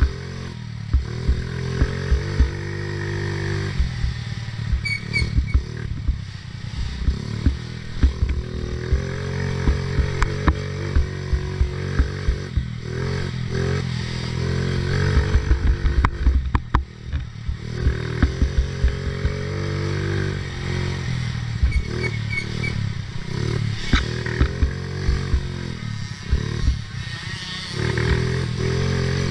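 Small 50cc youth ATV engine revving up and down again and again as it is ridden hard over a rough dirt trail, with knocks and rattles from the machine jolting over bumps.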